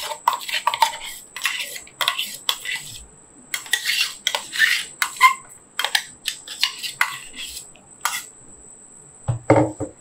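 A metal spoon scraping and clinking against the inside of a stainless-steel mixer-grinder jar as a wet ginger, garlic and green chilli paste is scraped out, a rapid irregular run of short scrapes and knocks.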